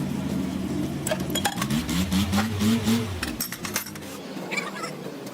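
Metal tools and engine parts clinking and knocking together as they are handled, over the steady hum of an engine that cuts out about three seconds in.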